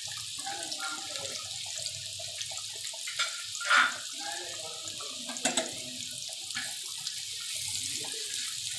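Chopped onions sizzling in hot oil in a kadai, a steady hiss with a brief louder burst about four seconds in and a few small pops.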